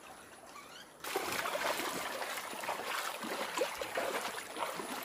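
Fast-flowing floodwater rushing and splashing through vegetation and a fence. It starts suddenly and loud about a second in, after a quieter opening.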